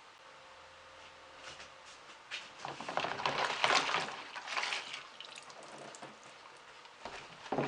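Water splashing and sloshing, with scrubbing and small knocks, as ventilation fan parts are washed. It starts about two and a half seconds in and is loudest in the middle, easing off before a sharp knock at the end.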